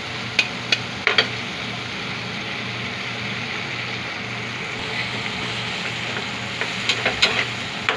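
Tomato, onion and flaked dried fish frying with a freshly added egg in an aluminium pan, a steady sizzle. A few sharp taps sound about a second in and again near the end.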